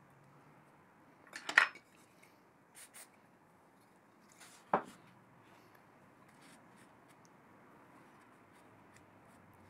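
Small metal clicks and clinks as a thin metal pick works against the cross slide and oil port of an antique lathe. A quick cluster of clicks comes about a second and a half in, and one sharp clink just under five seconds in, with a few faint ticks after.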